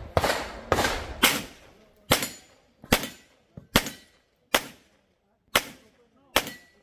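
Pistol shots fired by an IPSC competitor during a timed stage: about nine sharp reports, three in quick succession at the start, then single shots spaced under a second apart.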